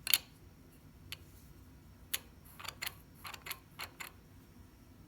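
A string of short, sharp clicks and taps of hard objects being handled, about nine at uneven spacing, the loudest one right at the start and several close together in the second half.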